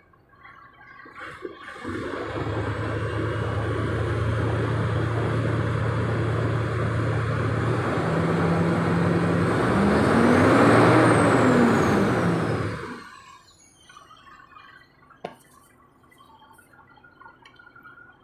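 Starter cranking a Mitsubishi Fuso 6M70 straight-six diesel for about eleven seconds without it starting, the hard starting that is the engine's fault. The pitch rises and falls over the last few seconds, then the sound stops abruptly.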